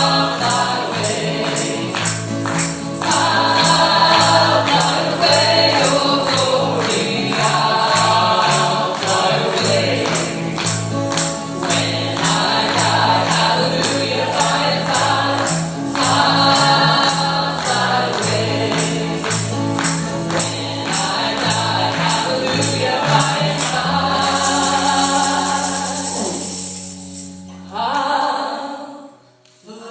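Gospel singers in harmony over an upbeat accompaniment with a walking bass line and a steady tambourine beat. About 24 seconds in the song lands on a long held final chord, which stops near 28 seconds.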